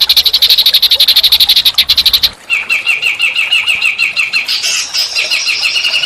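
Recorded small-bird calls played as song-training material: a fast, even rattling call, then an abrupt switch about two seconds in to a rapid trill of repeated high chirps from another small bird.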